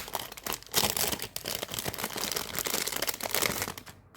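Packaging crinkling and rustling as a package is opened by hand, a dense crackle that stops shortly before the end.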